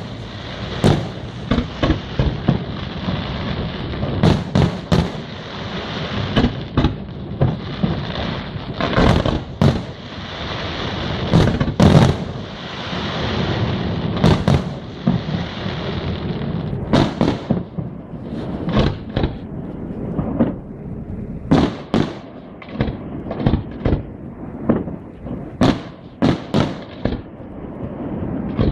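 Aerial fireworks display: shells bursting one after another, overlapping in a dense continuous barrage for about the first half, then thinning to separate sharp bangs a second or so apart.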